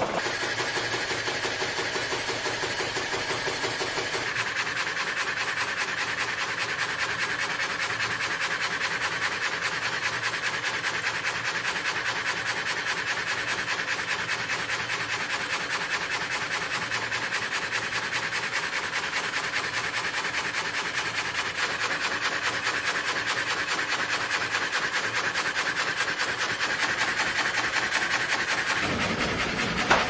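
Old multi-blade vertical frame saw (gang saw) cutting through a log: a steady, rapid rasping of the blades' up-and-down strokes in the wood.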